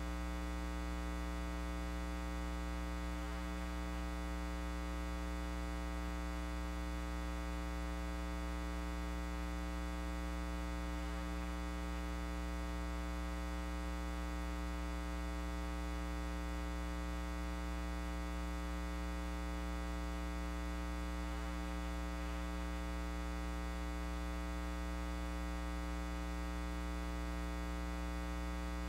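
Steady electrical mains hum: a low buzz with a stack of higher tones above it, unchanging in level.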